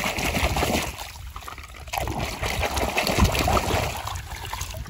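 Water splashing and sloshing as a hand scrubs a plastic toy car under shallow muddy water, with a lull about a second in before the splashing picks up again.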